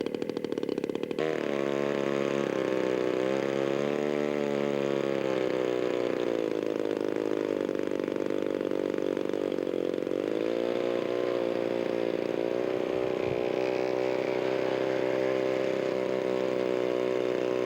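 Radio-controlled scale model airplane engine running loud. It comes in sharply louder about a second in, and its pitch rises and falls for several seconds before settling to a steady drone.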